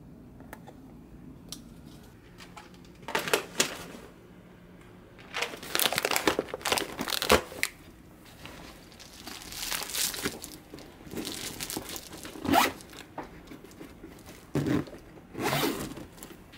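Plastic chocolate-callet bags and plastic storage tubs crinkling and rustling as they are handled and packed into a foil-lined insulated bag, in several short bursts.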